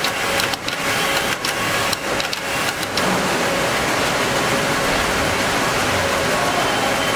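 Knitting-mill machinery running: a dense mechanical din, uneven with brief dips for about three seconds, then steady.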